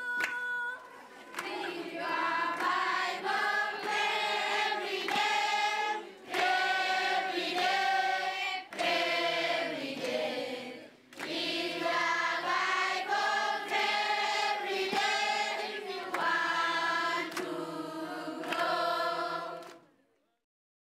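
Choir singing in phrases with short breaks between them; the singing fades out and ends about a second before the end.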